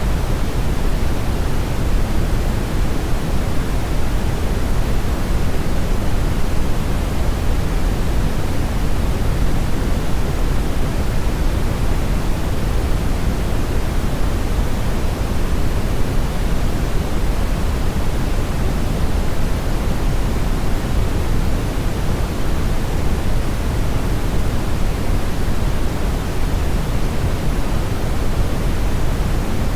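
Loud, even rushing noise, like pink noise or static, with no changes and no distinct events.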